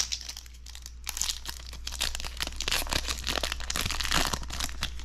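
Foil wrapper of a Magic: The Gathering draft booster pack being torn open and crinkled by hand: a dense, crackly rustle that picks up about a second in.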